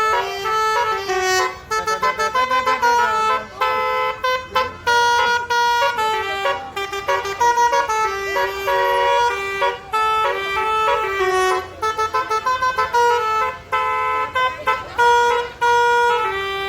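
A bus's basuri musical air horn playing a fast melody. It holds notes that jump from pitch to pitch, with bursts of quick repeated stuttering notes.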